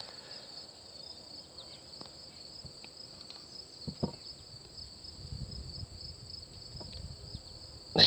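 Insects chirring steadily at a high pitch, with a few faint knocks, the clearest about four seconds in.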